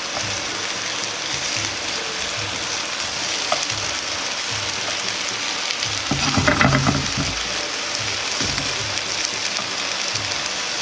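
Cabbage, carrot and other vegetables sizzling steadily in an ordinary frying pan over low heat as chopsticks turn them. A brief louder burst of noise comes about six seconds in, lasting about a second.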